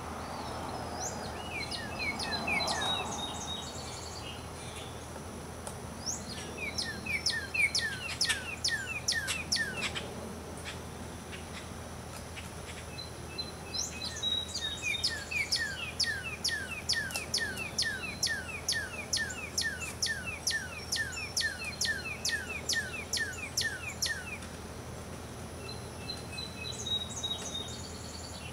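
Songbirds singing: long runs of quick, repeated falling notes, one run about a quarter of the way in and a longer one through the middle, with short higher twitters between.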